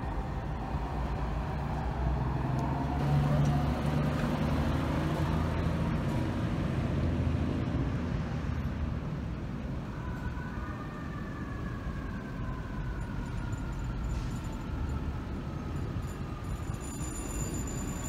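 FDNY fire apparatus leaving the firehouse with its emergency lights on: a deep diesel engine rumble and passing traffic. From about ten seconds in, a siren tone slides slowly down in pitch.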